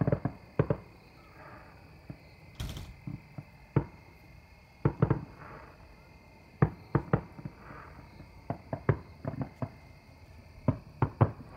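Aerial fireworks shells bursting: a string of irregular sharp bangs that come faster, in clusters of two or three, in the second half.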